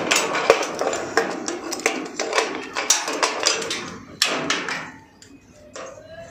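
Key working a padlock on a wrought-iron grille door, then the metal door rattling as it is unlocked and pulled open: a quick run of metallic clicks and clanks, with a louder clank about four seconds in.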